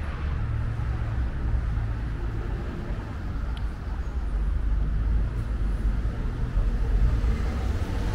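City street traffic going by: a steady low rumble of cars, swelling a little about five seconds in.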